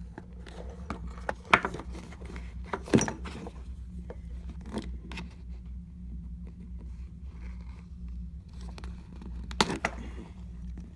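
Metal clicks, knocks and scrapes of a steel adjustable wrench being handled and set down on a table, a few sharper knocks standing out, over a steady low hum.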